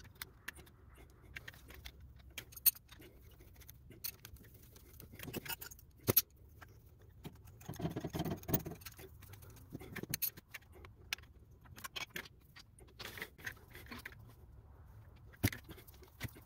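Metal oil and coolant lines and their fittings clinking and rattling against cast-iron turbo and manifold housings as they are fitted by hand: scattered sharp clicks and taps, with a busier spell of rattling about eight seconds in.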